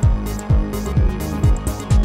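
Electronic dance music with a steady kick drum, a little over two beats a second, under a held low tone and ticking hi-hats.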